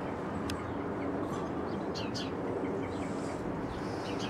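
Small birds chirping in short, high calls, several of them in quick pairs, over a steady background rumble.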